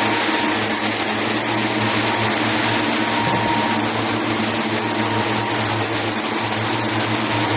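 Factory machinery running with a steady hum: a low drone and a faint thin tone above it, unchanging throughout.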